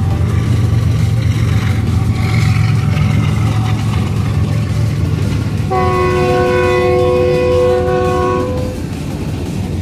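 Freight train rolling past a level crossing with a steady low rumble. About six seconds in, the diesel locomotive's horn sounds one long blast of several tones at once, lasting about three seconds.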